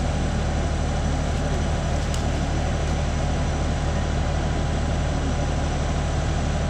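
An engine idling steadily with a low, even drone.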